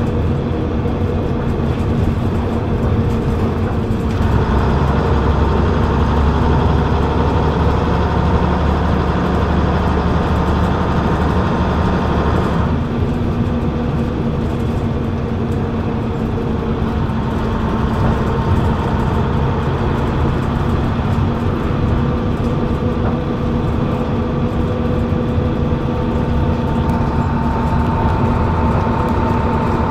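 Leyland Atlantean double-decker bus's rear-mounted diesel engine, heard from the back seat above it, running steadily under way. Its note shifts about four seconds in and again around the middle.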